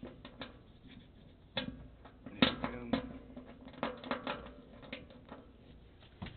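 Irregular small clicks and knocks as a gloved hand fits a part and starts its screws by hand on a GS-X bowling pinsetter's setting table. The sharpest click comes about two and a half seconds in.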